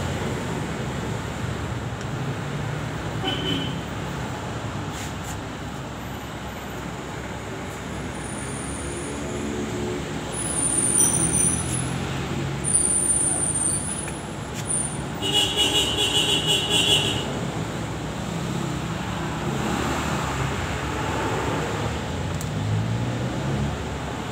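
Steady traffic noise of vehicles running past, rising and falling, with a brief higher-pitched sound about fifteen seconds in.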